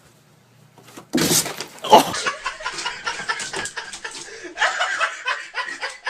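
People laughing loudly and continuously, breaking in suddenly about a second in with a loud burst.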